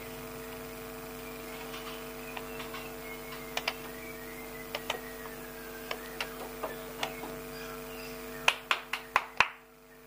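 Caged Bornean white-rumped shama giving sharp clicking notes at irregular intervals as it flicks its tail, ending in five louder clicks in quick succession near the end, over a steady low hum.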